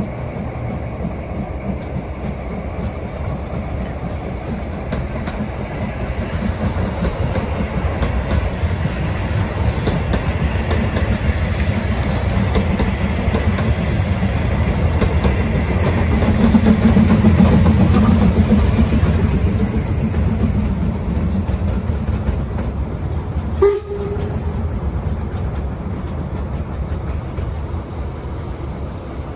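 Harz narrow-gauge steam train departing behind a 'Harzbulle' 2-10-2T tank locomotive. The coach wheels rumble and clatter over the rails, growing louder as the coaches pass close and easing off as the train draws away. A single sharp knock comes about 24 seconds in.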